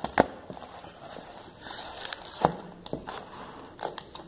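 Plastic mailer package being handled on a wooden table: rustling of the packaging with a few sharp knocks and taps, the loudest about two and a half seconds in.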